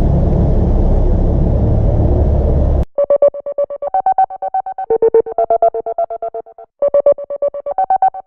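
Steady low rumble of a vehicle on the road, cut off suddenly about three seconds in by background music: fast, evenly pulsed synth notes, about eight a second, stepping between a few pitches, with a brief break near the end.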